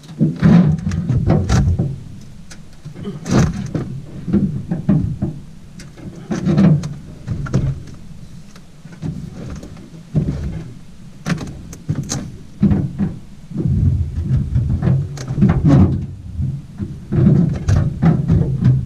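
Sheet-metal front bed rail of a Toyota Tacoma pickup being levered with large pliers to bend it back straight: repeated creaks and clanks of metal under strain, a burst every second or two.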